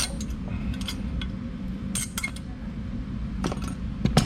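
Light metallic clinks and scrapes of rusted brake-pad clips being worked off a caliper bracket, with a sharper clink about two seconds in and another near the end, over a steady low hum.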